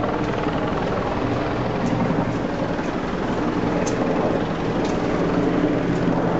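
Steady engine drone with a low hum, running evenly throughout.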